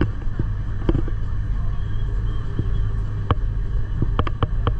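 Gornergrat rack-railway train running: a steady low rumble with sharp clacks at uneven moments, several close together near the end.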